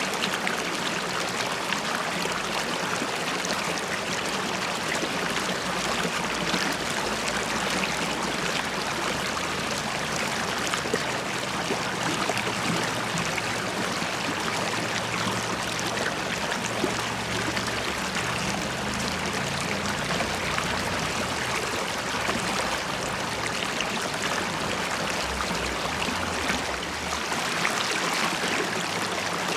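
A river running and bubbling over stones, a steady rush of water with small burbling splashes.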